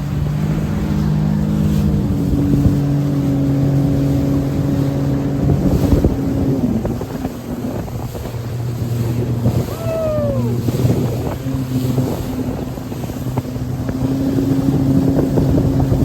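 Sea-Doo Fish Pro personal watercraft engine running under way, its pitch shifting down about six seconds in and changing again around twelve, with wind rushing past the microphone.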